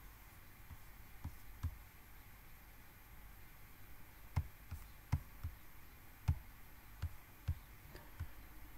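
Computer mouse clicks at irregular intervals, about ten in all, over a faint low hum.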